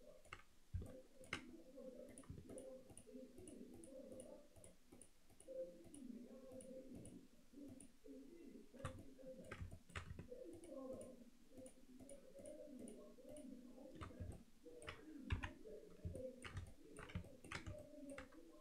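Computer mouse clicks and keyboard key presses, with runs of light, even ticking from a mouse scroll wheel, over faint room noise.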